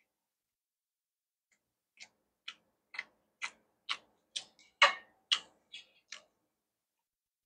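Close-miked chewing of crisp food: about ten crunches at roughly two a second, starting about two seconds in and stopping a little after six.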